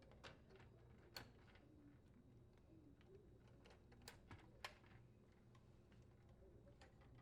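Faint small clicks and taps of wire connectors being pressed onto the terminals of a microwave control board, a handful of sharp clicks spaced irregularly over a low steady hum.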